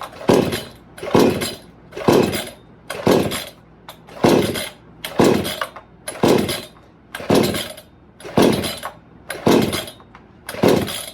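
A 58 cc chainsaw's recoil starter being pulled about eleven times, roughly once a second, the two-stroke engine turning over each time without catching. The saw has no fuel in it yet.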